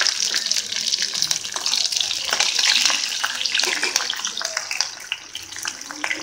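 Green chillies sizzling in hot oil in a steel kadai along with cumin and mustard seeds, a dense hiss with constant fine crackles. This is the tempering stage, just after the chillies hit the oil. The sizzle eases a little after about four seconds.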